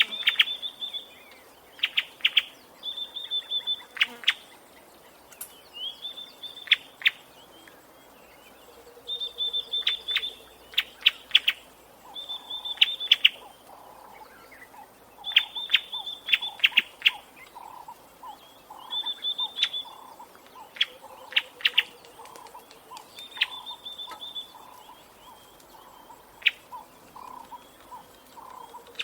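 A bird calling over and over. Every two to three seconds it gives a high, held note that breaks into a quick run of sharp clicks. From about twelve seconds in, a lower pulsing call repeats steadily underneath.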